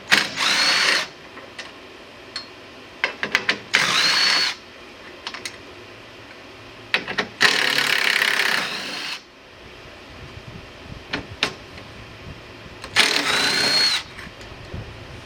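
A power drill runs in four short bursts of about a second or two each. Each burst starts with a quick rising whine and then runs steadily, with sharp clicks of handling between bursts.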